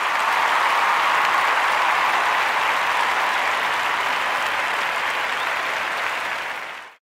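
Audience applause, a dense even clatter of many hands that fades in at the start and fades out near the end.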